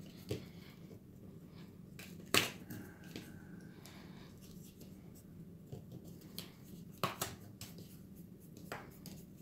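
Light clicks and taps of hand work as a foam sponge brush blots paint onto the edges of a bundle of thin wooden shutter pieces held together in the hand. The sharpest click comes about two and a half seconds in, with two close together about seven seconds in and one more near the end, over a low steady hum.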